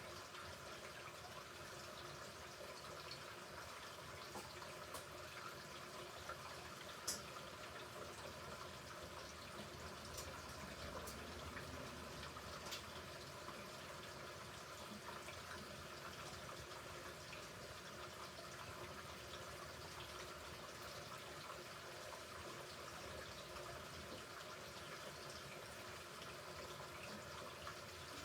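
A Hoover Ecologic Computer Washer 1300 washing machine in its rinse cycle: a faint, steady sound of running water with a few light ticks.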